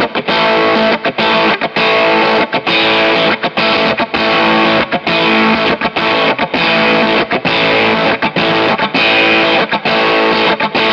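Electric guitar through a KingTone MiniFuzz v2 fuzz pedal, playing thick, heavily compressed fuzz chords with many short breaks between strokes. Meanwhile the pedal is switched between its germanium and silicon settings.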